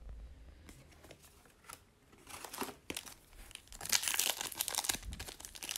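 Foil wrapper of a hockey card pack crinkling as it is handled and torn open. Quiet for the first two seconds, then a fast run of crackles, loudest about four seconds in.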